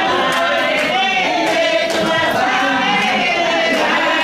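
A congregation of women singing a church song together, with hand clapping keeping time.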